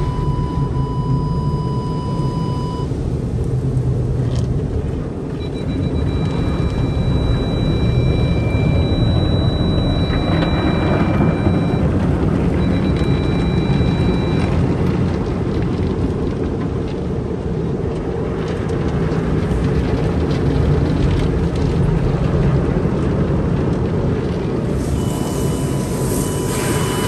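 Automatic car wash heard from inside the car's cabin: a steady rumble of water spray and wash equipment working over the body and windshield, with thin steady tones coming and going. A sharper hiss of spray comes in near the end.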